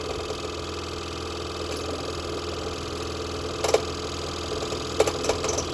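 Scroll saw running steadily, its fine 2/0 blade cutting 1/4-inch Finland birch plywood. A few sharp clicks come about two-thirds of the way through and again near the end.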